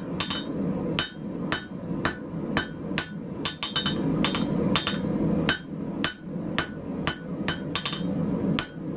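Hand hammer striking hot 8 mm rebar on a steel anvil at about three blows a second, each blow a sharp clang with a short ring, as the bar is drawn down thin. A steady rushing noise, most likely the forge burner, runs underneath.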